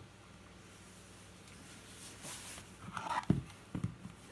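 Handling noises from an e-bike mid-drive motor being taken apart: a brief rustle, then a scrape and a few sharp knocks as the black housing half is lifted off and set down on the wooden workbench.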